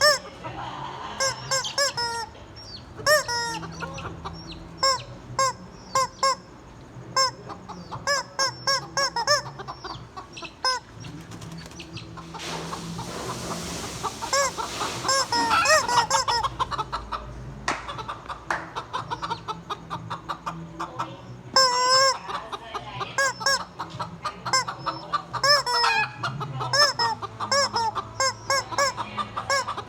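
Chickens clucking: a steady run of short, arching calls, one after another, with a stretch of hissing noise near the middle.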